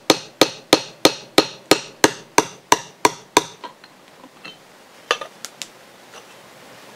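Hammer tapping a metal seal installer tool, about three light taps a second, driving a new prop shaft seal down into an outboard lower unit's bearing carrier. The taps stop about three and a half seconds in, and a few faint clicks follow.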